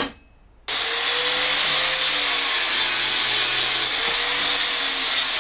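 Electric angle grinder abrading steel, most likely taking paint off a part before welding. It starts abruptly under a second in and then runs loud and steady, with a faint wavering whine under the grinding noise.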